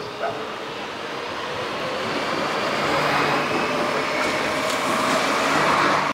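Renfe passenger train approaching and passing beneath, its rumble and wheel noise growing steadily louder.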